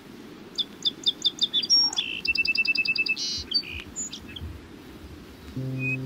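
Songbird singing: a run of about six short high chirps, then a quick even trill of about ten notes and a few scattered calls, over a low steady hiss. Near the end a held low musical note comes in as music starts.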